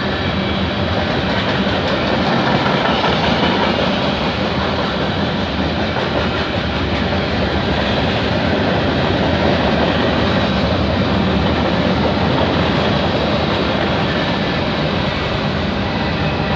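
Freight cars of a long CN mixed freight train (boxcars, tank cars, centerbeam flatcars) rolling steadily past, with a continuous rumble and clatter of steel wheels on the rails.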